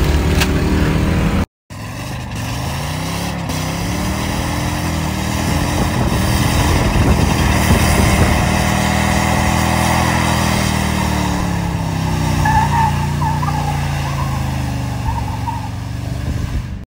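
Ford F-150's V8 revving high during a burnout, the rear tyres spinning: the pitch climbs for several seconds after a cut about 1.5 s in, holds, then slides down as the truck moves off. Before the cut, a different loud engine is heard briefly.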